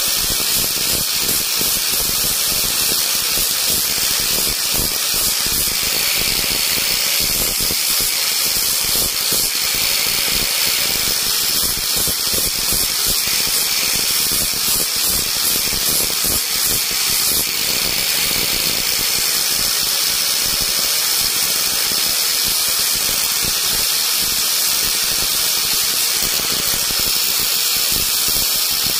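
Small high-speed rotary carving tool running steadily against wood, a continuous high whine over a hiss.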